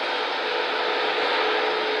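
Fiber laser cutting machine running, heard as a steady, fan-like rushing noise with a faint steady hum.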